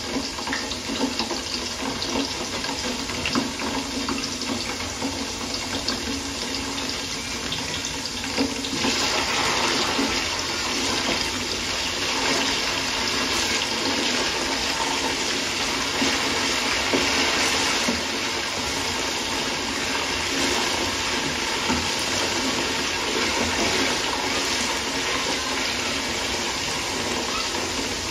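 Large aluminium stockpot of broth and onions boiling on the stove: a steady watery noise that grows louder about nine seconds in.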